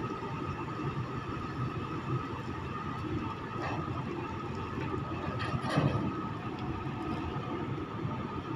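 Steady low engine rumble of ships at the quay, with a faint steady hum above it and no sudden events.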